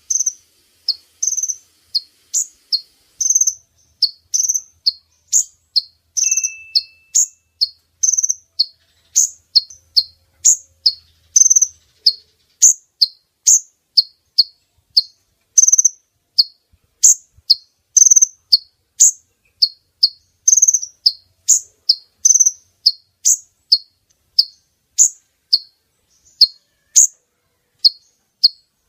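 Call of a female kolibri ninja (konin), a sunbird, played as a lure for males: an even, unbroken series of short, high chirps, about two a second.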